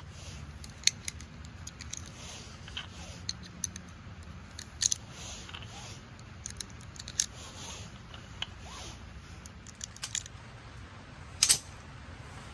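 Small brass .25 Auto cartridges clicking as they are handled and pressed one by one into a pocket pistol's magazine: many short, sharp metallic clicks over a steady low rumble. A louder sharp crack, doubled, comes near the end.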